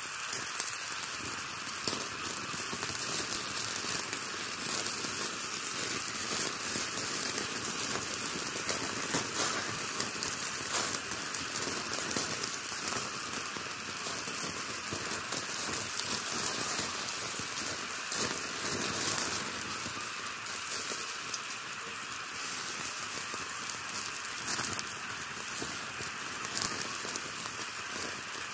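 Steady crackling hiss, mostly high-pitched, with many small clicks scattered throughout.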